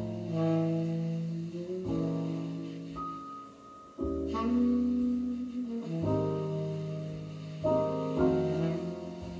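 Piano-led instrumental music from a CD, played at low volume through a Sansui AU-777A amplifier and loudspeakers and heard in the room.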